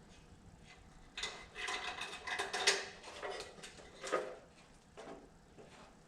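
Parts being handled and pulled off a riding mower's dash: a cluster of rattles, knocks and rustles from about one to three and a half seconds in, then a single sharp clack about four seconds in.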